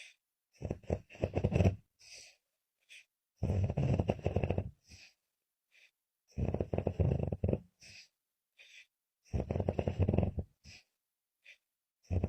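A woman snoring, her snoring carried on the out-breath and the in-breath. Four loud, rough snores come about three seconds apart, each lasting about a second and a half, with a fifth starting at the very end.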